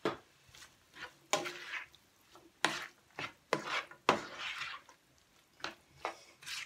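A plastic spatula stirring and scraping diced ham and vegetables around a nonstick frying pan, in about a dozen irregular strokes, some short and some drawn out.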